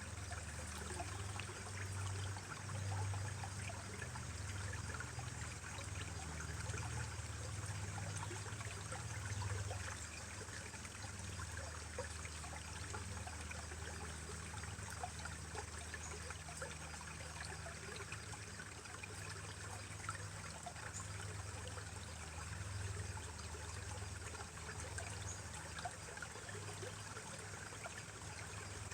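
Mountain stream trickling steadily, with many small splashes and a low rumble underneath.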